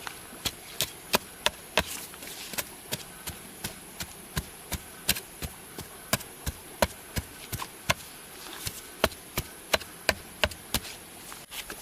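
A tool striking bamboo in steady, regular blows, about three a second, with a short pause just past the middle. A steady high-pitched insect drone runs behind the blows.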